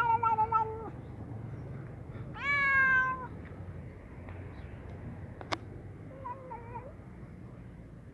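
Ginger cat meowing while eating: a long drawn-out meow ending about a second in, a louder meow rising then falling in pitch at around two and a half seconds, and a short, fainter one near the end. A single sharp click comes between the last two.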